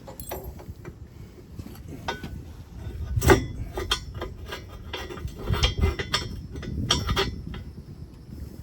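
Metal tow bar parts clinking and knocking as the bar is moved and fitted to the car, in irregular knocks with the loudest about three seconds in.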